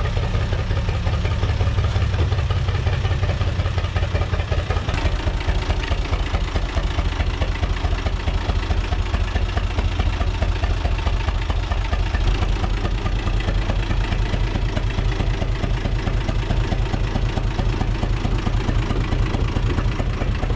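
UTB 445 tractor's diesel engine running steadily with an even low rumble, its pitch neither rising nor falling.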